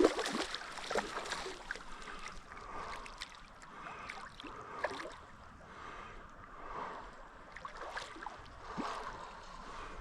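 Shallow creek water splashing and sloshing irregularly.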